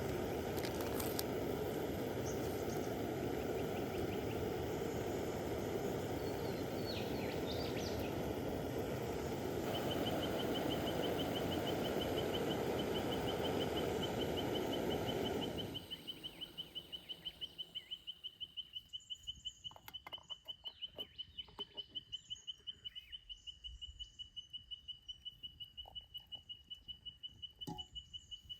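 A steady rushing noise that cuts off abruptly about halfway through, leaving quiet outdoor ambience: a high, rapidly pulsing chirp that keeps an even beat, with scattered bird chirps.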